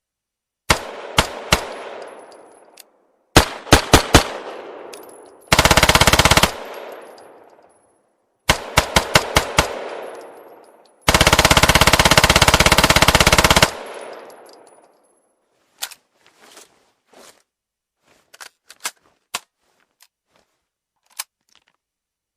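PPSh-41 submachine gun firing: two groups of three or four single shots, a burst of about a second, five quick shots, and a long burst of about two and a half seconds, each trailing off in an echo. Near the end come a few quieter metallic clicks of the gun being handled for reloading.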